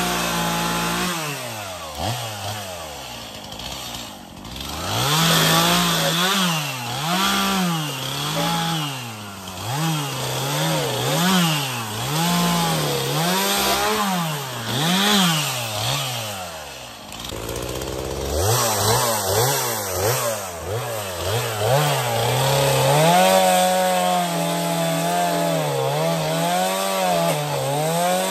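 Gas chainsaw cutting through a dead pine log, its engine revving up and bogging down about once a second as it bites into the wood. The engine note drops briefly about two-thirds of the way through, then climbs again and keeps cutting.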